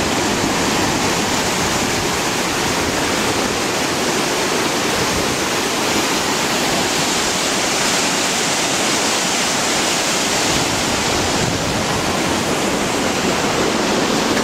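Water flowing hard through a dam: a loud, steady rush of falling water.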